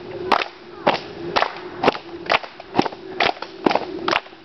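A group of people beating out a steady rhythm with their hands, about two sharp hand strikes a second, keeping time for an action song.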